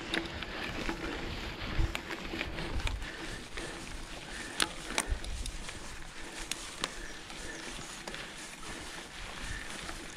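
Mountain bike rolling slowly over a rough grassy dirt track: tyre noise on the ground with scattered irregular clicks and rattles from the bike.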